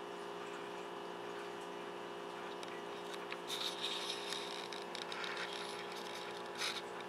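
An ice cube scraping and skittering over a hard surface as a cat bats it: short rattling scrapes about three and a half seconds in and one more near the end, over a steady hum.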